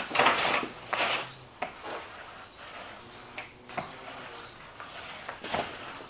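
Small roller rolling wet contact cement over a plywood countertop: a series of short rubbing, swishing strokes, loudest in the first second.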